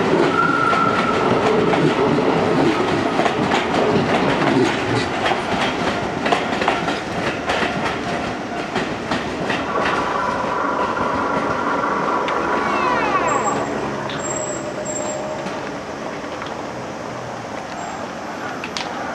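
Keio Line electric train passing, its wheels clicking over the rail joints. About halfway through a high whine sets in and rises in pitch, and the sound fades toward the end.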